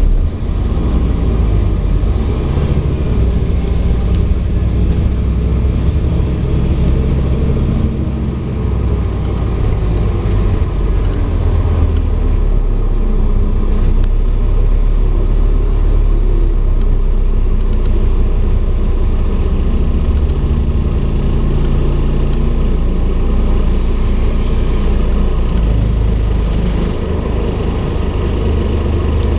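Scania N230UD double-decker bus heard from inside the passenger saloon while under way: the five-cylinder diesel engine's steady low drone, its note shifting a few times, with a few faint clicks and rattles from the bodywork.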